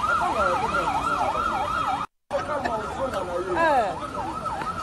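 Emergency-vehicle siren on a fast yelp, rising and falling about three to four times a second, over street noise. The sound cuts out completely for a moment about two seconds in, then the siren carries on.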